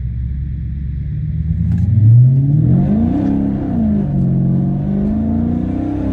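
Chrysler 300 SRT8's 6.4-litre Hemi V8 accelerating hard. After about two seconds of steady running the revs climb, drop back at an upshift about three and a half seconds in, then climb again.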